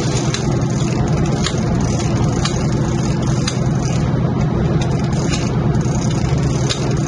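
The sportfishing yacht's inboard engines running steadily, a low drone with the sea's wash around it. Faint clicks come about once a second.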